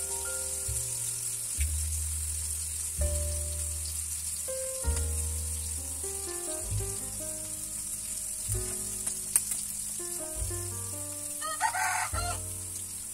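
Vegetables sizzling as they fry in a pan over a wood fire, under background music, with a rooster crowing once near the end.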